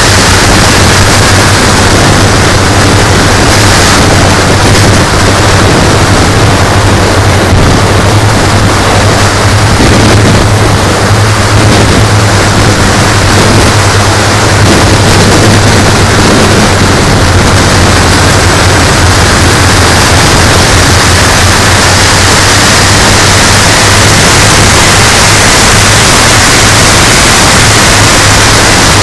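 Engines of a large RC model B-17G running steadily, recorded so close and loud that they overload the recording into a harsh hiss over a steady low hum.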